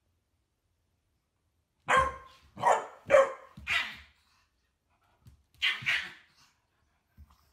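Chihuahua barking: four quick barks, a pause, then two more.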